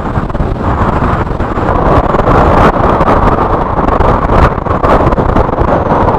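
Strong windstorm gusts buffeting the microphone: a loud, rough rush of wind noise that grows louder about a second in and surges and dips from moment to moment.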